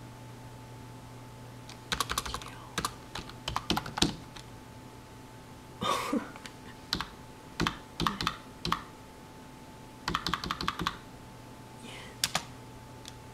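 Typing on a computer keyboard in several short bursts of keystrokes with pauses between, over a faint steady hum.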